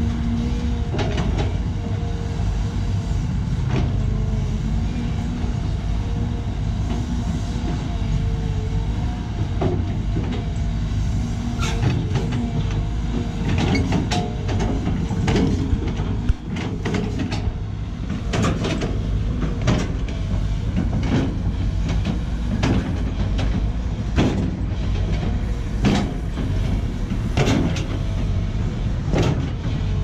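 Sany SY215C excavator's diesel engine running steadily under load while the bucket works a dirt slope, with repeated short knocks and scrapes that come more often in the second half.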